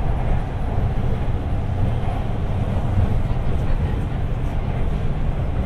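Steady low rumble heard from inside the car of a Guangzhou Metro Line 3 B4-series train running through the tunnel.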